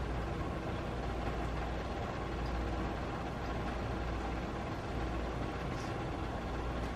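A steady low mechanical hum at an even level, with a faint click near the end.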